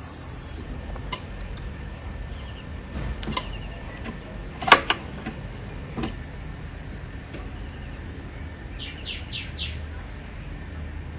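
A few sharp clicks and knocks, the loudest about five seconds in, over a steady high thin whine and a low rumble.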